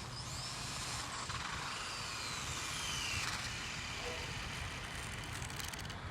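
RC drag car making a pass: a faint high motor whine rises, then drops in pitch about three seconds in as the car goes by.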